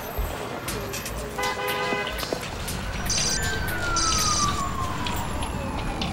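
City street traffic: a car horn sounds for under a second about a second and a half in, then a siren wail falls slowly in pitch through the second half.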